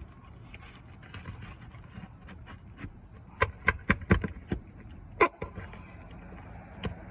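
A quick cluster of sharp knocks, about six in a second and a half near the middle, then one more a second later, with lighter taps in between: a hand tool working nails and shingles loose on an asphalt shingle roof.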